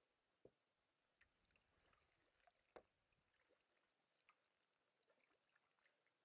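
Near silence: faint drips and small splashes of water around a sea kayak drifting along. There are scattered soft ticks and two slightly louder taps, one about half a second in and one near the three-second mark.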